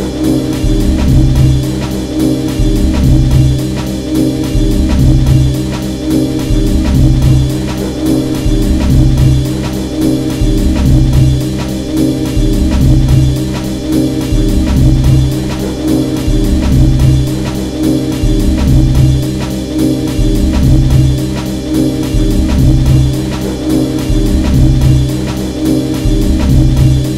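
Background music with a steady beat and a heavy, repeating bass line, loud throughout.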